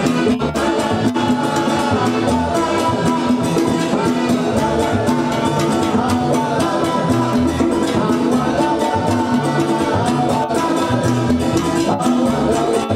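Live salsa band playing, with congas and other Latin hand percussion driving a steady beat.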